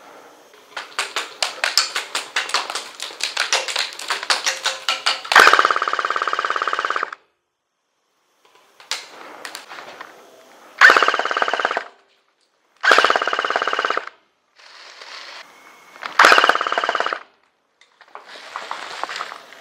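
Airsoft electric guns firing on full auto: a fast, uneven run of shots, then four loud bursts of one to two seconds each, with quieter bursts of fire between them.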